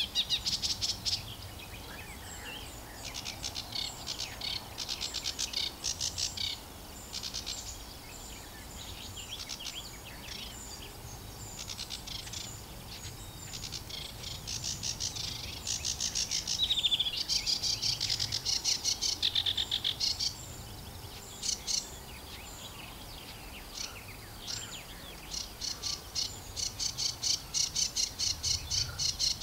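Sedge warbler singing: long runs of rapid, varied chattering notes and trills, delivered in bursts with short pauses. The song is loudest about halfway through and again near the end.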